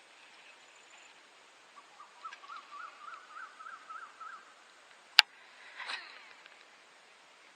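A bird calling: a run of about ten short, repeated, slightly rising notes, roughly four a second. About five seconds in there is a single sharp click, the loudest sound, followed by a brief noisy rustle.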